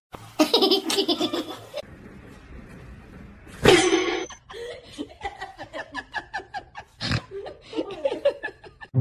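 A person laughing hard in repeated bursts, quickest and most sustained in the second half.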